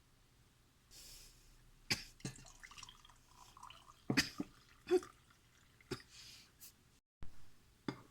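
Kitchen handling sounds: a short hiss about a second in, then about five sharp knocks and clinks with light rustling between them.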